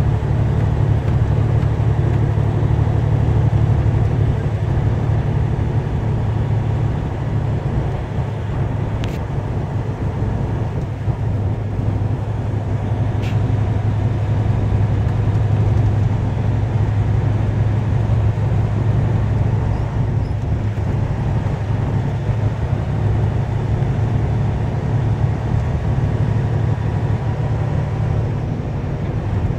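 Truck cab interior while driving: a steady low engine drone with road noise, and two faint ticks about nine and thirteen seconds in.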